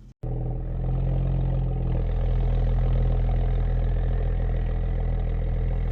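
Audi S4 engine running steadily at an even pitch, cutting in abruptly just after the start.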